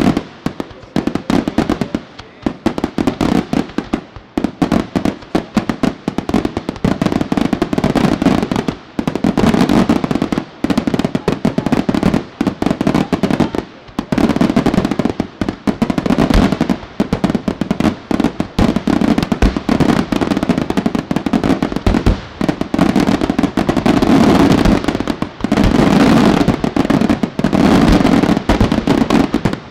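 Aerial firework shells bursting in a dense, rapid barrage of booms and crackles. It is gappier at first, then almost unbroken and fuller from about a third of the way in.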